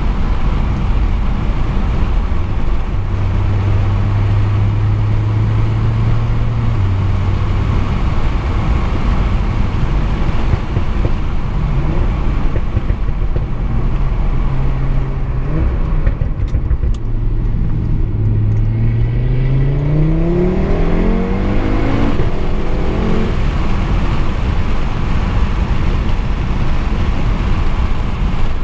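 MTM-tuned Audi RS3's 2.5-litre turbocharged five-cylinder under way, running at a steady engine speed over loud road and tyre noise, then rising in pitch as the car accelerates for a few seconds about two-thirds of the way in before easing off.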